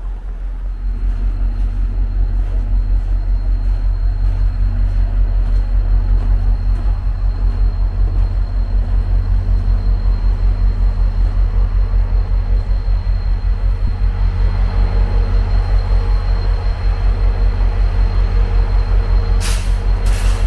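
VIA Rail F40PH diesel-electric locomotive 6401 running, a deep steady throb with a thin high whine over it, growing louder about a second in. Two short hisses of released air come near the end.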